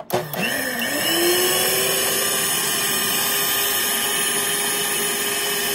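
Electric stand mixer switched on with a click. Its motor whine rises in pitch over about the first second as it comes up to speed, then it runs steadily, its twin beaters whipping a cream and milk mixture in a glass bowl.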